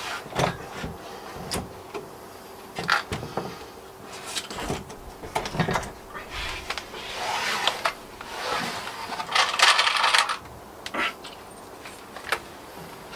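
Irregular wooden knocks, clicks and scraping as a timber garden gate is shifted and nudged into place between its posts on packing shims, with a few longer scrapes in the second half.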